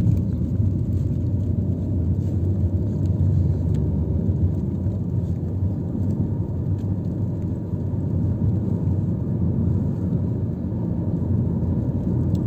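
Steady low rumble of a moving bus, engine and road noise heard from inside the cabin.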